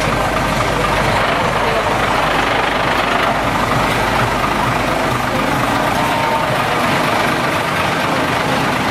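Diesel engine of a Scania aerial ladder fire truck idling steadily.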